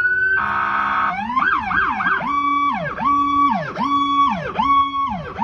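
Electronic police-siren sound. It opens with a rising wail, then a short steady tone and a quick warble. After about two seconds it settles into a repeating whoop that rises, holds and falls, roughly one and a half times a second.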